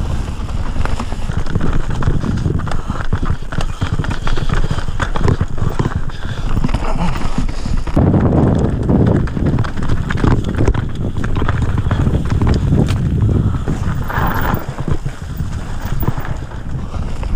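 Bike descending rough dirt and rocky trail, heard from an on-board camera: wind buffeting the microphone, tyres on the ground, and the bike rattling with many quick knocks over stones and roots. The sound changes abruptly about halfway through and again near the end.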